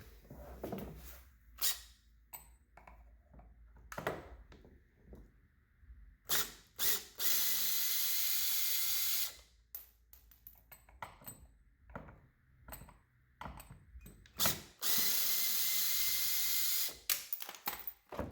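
Cordless drill with an extended T30 Torx bit running in two steady bursts of about two seconds each, driving the reboarding step's bolts, with knocks and clicks of the bit and parts being handled between the bursts.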